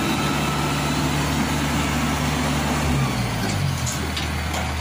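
Yanmar YH850 combine harvester's diesel engine running steadily, its revs dropping about three seconds in and settling to a lower steady pitch.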